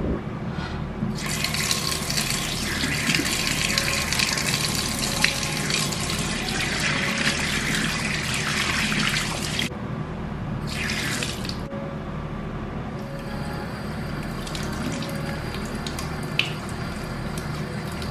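Tap water running into a ceramic bathroom sink while a toothbrush and hands are rinsed under it. The flow stops briefly about ten seconds in, gives a short burst, stops again, and then runs more softly to the end.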